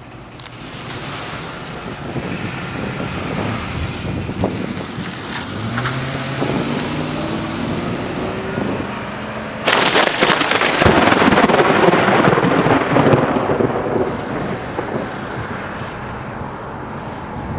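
Thunder from a severe thunderstorm, heard from a moving vehicle. A sudden loud crack about ten seconds in rumbles on and slowly fades. Before it, the vehicle's engine rises in pitch as it speeds up.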